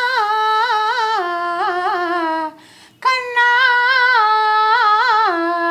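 A woman singing unaccompanied in two long phrases. Each starts on a held note and steps down in pitch with wavering ornaments, in a Carnatic-like style. There is a short breath between the phrases about two and a half seconds in.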